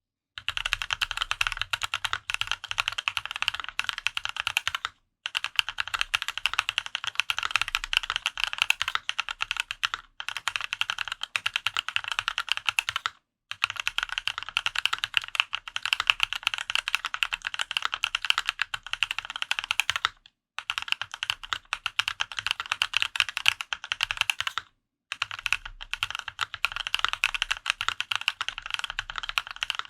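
Fast typing on a Dolphin 2021 custom mechanical keyboard with an aluminum plate, Haimu Raw switches lubed with Krytox 205g0, and Linworks Retro keycaps. The keystrokes come in runs of several seconds, broken by four brief pauses.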